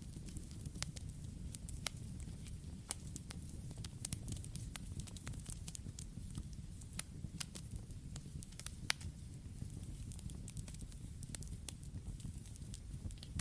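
Campfire burning: a steady low rush of flames under frequent, irregular sharp crackles and pops of burning wood.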